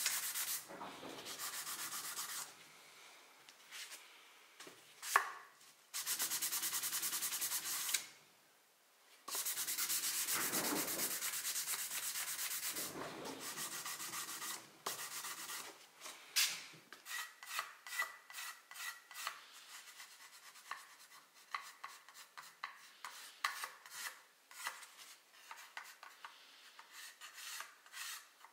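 Hand-finishing a hardwood handle: long runs of continuous sandpaper-on-wood rubbing, broken off abruptly, through the first half. Then quick short strokes, about two a second, of a steel card scraper shaving the wood.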